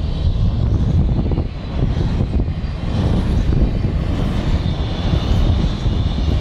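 Double-stack container freight train's well wagons rolling past close by: a steady, loud rumble of steel wheels on the rails.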